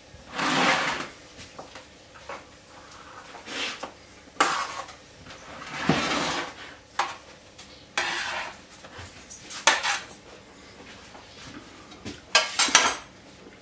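Metal baking tray and palette knife being handled on a kitchen worktop: a string of short scrapes and clinks, some a second long, with short pauses between.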